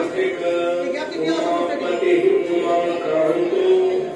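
Devotional music with chant-like singing in long held notes.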